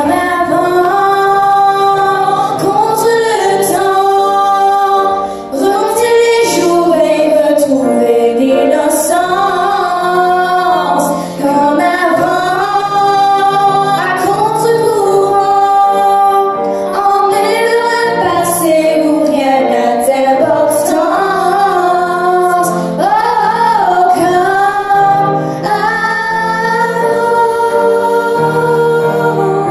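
Women singing a song into microphones, accompanied on a grand piano.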